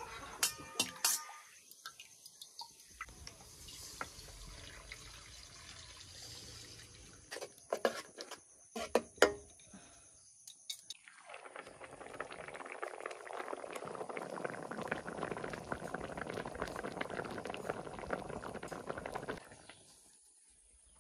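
Metal spatula clinking and scraping against a metal wok, then a thick curry of dry fish and kudrum leaves bubbling steadily on the fire for several seconds before it fades away near the end.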